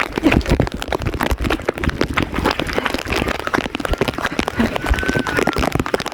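Footsteps running on wet, flooded ground, a quick irregular patter of steps and splashes with rain.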